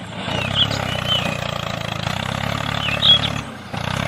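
A small motor runs steadily with a low hum, dropping out briefly about three and a half seconds in, with short high chirps over it.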